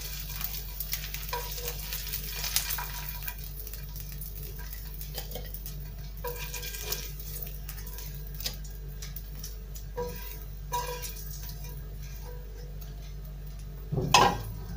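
Metal spatula scraping and clicking in a nonstick frying pan as fried eggplant slices are pressed and lifted out, over a steady sizzle of hot sunflower oil. Near the end, a louder clatter as the pan goes back onto the gas stove's grate.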